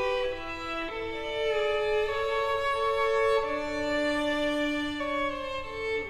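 Background music: a slow melody of long held notes on a bowed string instrument.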